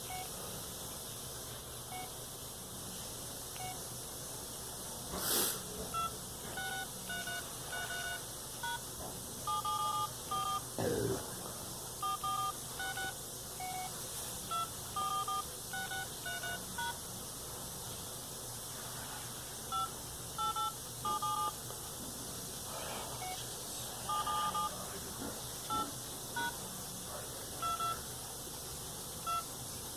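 Phone keypad touch tones: dozens of short two-note beeps as keys are pressed in quick irregular runs, over a steady low hiss. A single brief noise about five seconds in.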